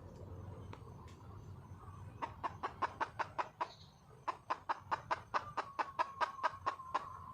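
Wild junglefowl hen clucking in two quick runs of short, sharp clucks: about eight starting two seconds in, then a longer run of about fourteen after a short pause. This is a hen's call to draw a cock.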